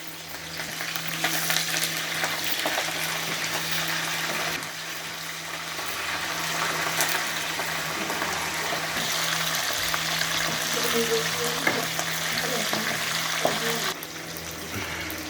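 Tempering spices (mustard seeds and other popu) sizzling and frying in hot Dalda vanaspati in a pan while being stirred, a steady hiss that eases off for a moment about a third of the way in and again near the end.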